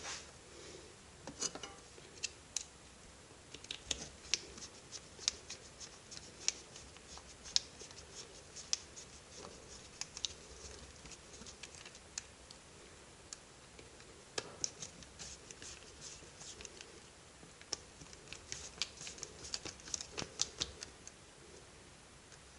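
Faint, scattered small clicks and scrapes of hand-tool work: a screwdriver turning screws in the plastic housing of a cordless impact driver, with small screws handled on a workbench. The clicks come in loose clusters, thickest in the middle and again near the end.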